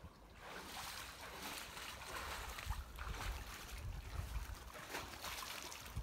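A person wading through a shallow creek in rubber boots, the water sloshing and splashing around the legs over the flow of the stream.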